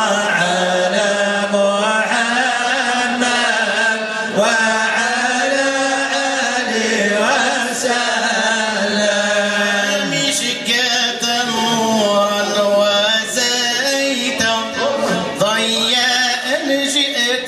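Unaccompanied male Sufi devotional chanting: a steady low held note runs under a solo voice singing a long, ornamented melody.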